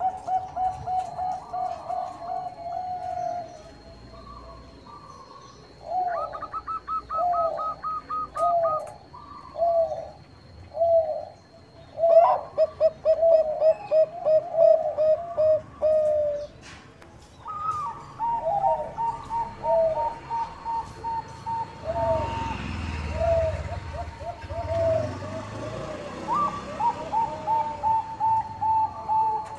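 Zebra doves of the Thai-bred 'Bangkok' perkutut strain calling in runs of quick, staccato coos. For stretches two birds call over each other, one pitched higher than the other.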